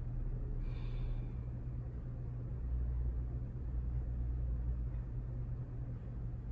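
Steady low hum and rumble of room background noise; no distinct event stands out.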